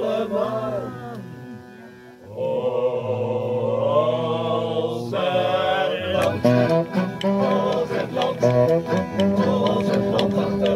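Live folk band with accordion and men singing. From about halfway the music settles into a brisk rhythmic tune with sharp clicking percussion.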